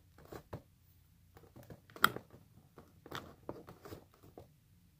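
Small plastic toy pieces clicking and knocking as a hand pushes a tiny toy into a plastic toy case with a door. There is a sharper click about two seconds in.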